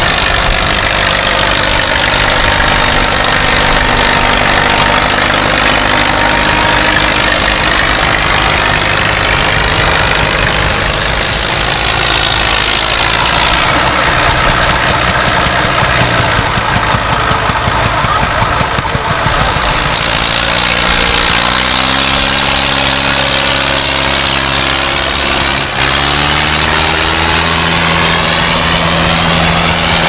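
Vintage farm tractor engine running steadily, its note rising about two-thirds of the way through as it revs up.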